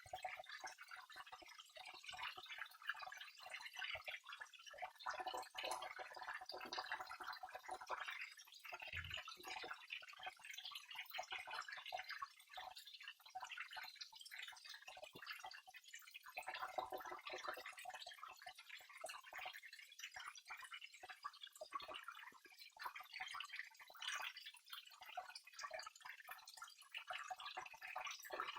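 Small waterfall: water falling and splashing steadily, a dense patter of small splashes and drips.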